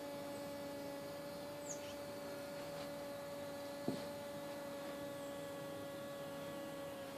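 Hoverfly hovering in place, its wingbeat giving a steady, even-pitched buzz like a hum with overtones. A single sharp knock about four seconds in.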